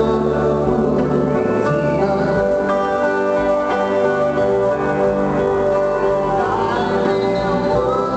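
A live band plays a slow rock ballad: electric guitar over steadily held chords and bass, with a few notes bending in pitch.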